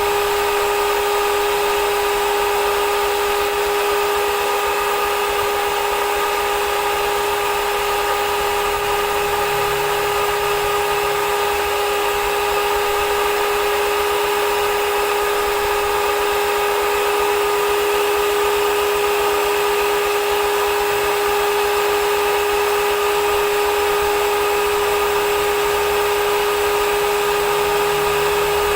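Brushed electric motor of an H&L ABW VGS 70 high-pressure jet cleaner running steadily, with a constant high whine over an even hiss.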